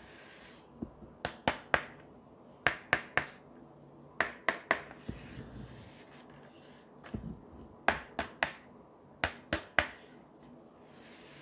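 Fingers tapping and handling a long cardboard box: sharp taps in quick runs of three or four, about five runs, with brief rubbing of hands on the cardboard in between.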